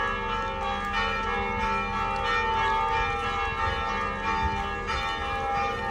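Church bells ringing: several bells at different pitches struck again and again, their tones overlapping and ringing on.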